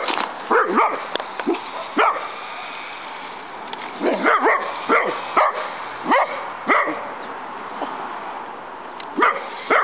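A pitbull–dachshund mix dog barking excitedly at a toy remote-control helicopter: a dozen or so short, sharp barks in irregular clusters, with brief pauses around three seconds in and again a little past the middle.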